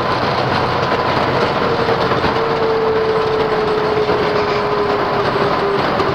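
Boeing 737 MAX's CFM LEAP-1B engines running in reverse thrust during the landing rollout, heard from the cockpit as a steady loud roar with rushing runway noise. A steady tone within it slowly drops in pitch as the aircraft slows.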